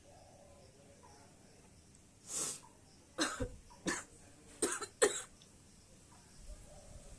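A woman coughing: a breathy sound about two seconds in, then about four short, sharp coughs in quick succession.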